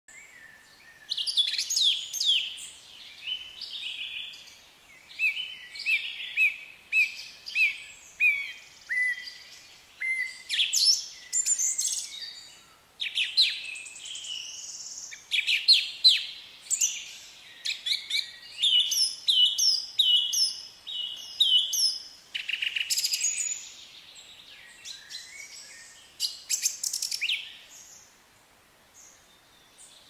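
Birdsong from several birds: high chirps, short runs of whistled notes and trills in quick bursts, thinning to a lull near the end.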